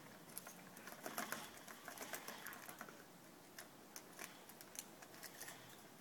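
Lorikeet and budgie bathing in a shallow plastic tub of water: faint, irregular small splashes and ticks of flicked water and wing beats.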